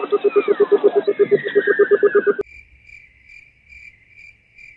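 A loud, fast-pulsing, warbling sound effect with whistle-like tones falling in pitch stops about two and a half seconds in. It gives way to a faint, evenly spaced cricket-chirp effect, about two chirps a second: the comic 'crickets' after a joke falls flat.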